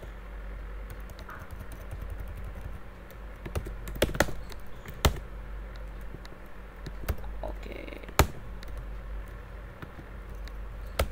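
Sparse computer keyboard keystrokes, single sharp clicks spaced irregularly, sometimes a second or more apart, over a low steady hum.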